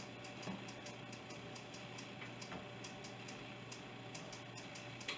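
Faint, regular ticking, about four ticks a second, over a steady low hum, with a couple of soft knocks.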